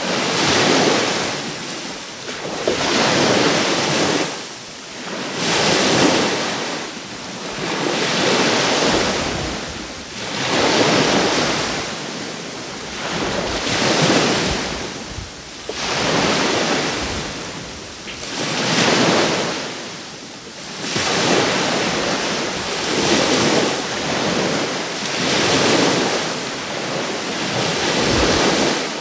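Sea waves breaking and washing up the shore, surging and falling back in a steady rhythm about every two to three seconds.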